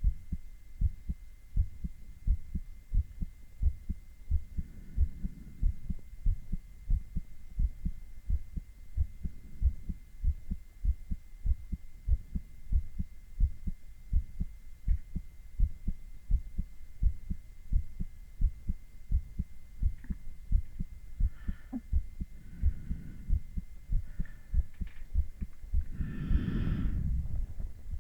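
A man's heart heard through a stethoscope: a steady lub-dub rhythm of paired low thumps, about one beat a second. A soft noise swells briefly near the end.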